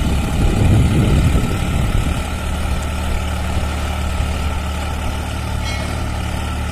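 Solis Yanmar 5015 tractor's three-cylinder diesel engine running steadily while pulling a cultivator through the soil, with a louder, rougher rumble for the first two seconds before it settles.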